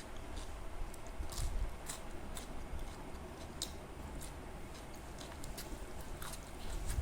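A person chewing and eating food close to the microphone, with irregular short clicks and smacks of the mouth.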